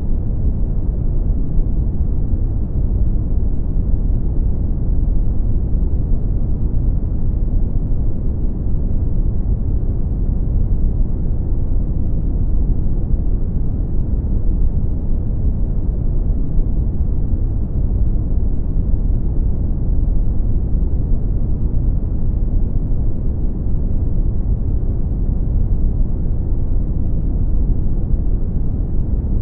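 Brown noise: a steady, deep rumbling hiss, strongest in the bass and dropping away toward the treble, with no changes.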